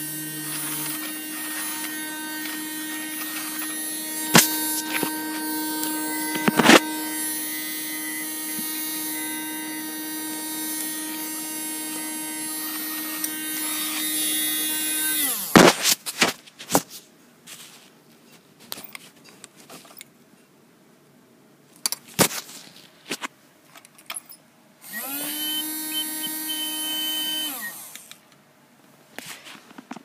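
Battery-powered Hetty desktop mini vacuum running with a steady motor whine, a few sharp clicks mixed in, for about fifteen seconds before it is switched off and winds down. Scattered knocks and handling clicks follow. Near the end it is switched on again for about three seconds and winds down once more.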